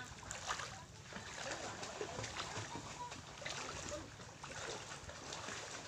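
Shallow seawater splashing and sloshing around a person's legs as they wade in barefoot, in a string of short splashes over a steady low rumble.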